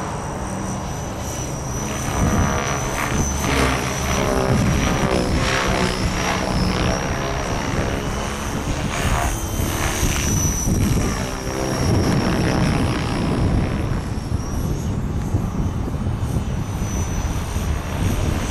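Align T-Rex 600 radio-controlled helicopter flying overhead: a steady high whine that wavers in pitch, with the rotor sound rising and falling several times in the middle as it manoeuvres, over a low rumble.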